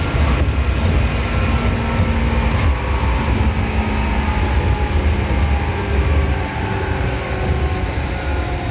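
Seibu 2000 series electric train running at speed, heard from inside the carriage: a steady, heavy rumble of wheels on rail with faint humming tones over it.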